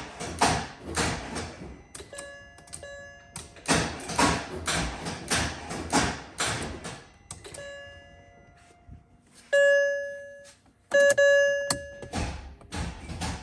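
Mercedes-Benz M156 6.2-litre V8 cranking on the starter without catching, a steady chug of about two strokes a second in separate bursts, the last near the end. Between the bursts the car's dashboard warning chime rings several times, loudest about ten seconds in. The long cranking without firing is the hard-start fault, worse on a cold start.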